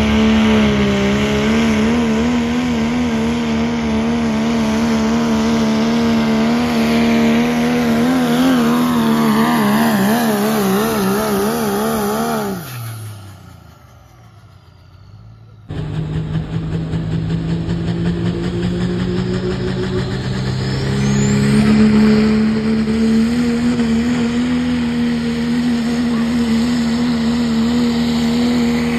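Diesel 4wd pickup engines at full throttle in a truck pull. The first engine holds a steady high note that begins to waver before dropping away about halfway through as the truck lets off. After a sudden cut, a second truck's engine runs, climbs in pitch a few seconds later and holds high.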